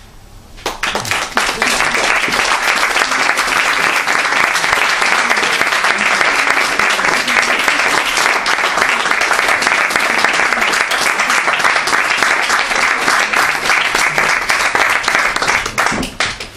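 Audience applauding: dense clapping breaks out under a second in, holds steady, and dies away near the end.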